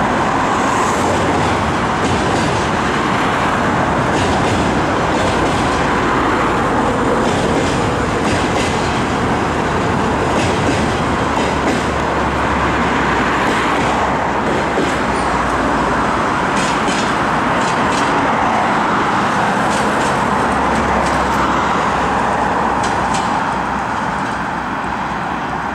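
Passenger coaches of a train rolling across a steel truss bridge: a steady loud rumble with wheels clicking over rail joints. It fades a little near the end as the train moves away.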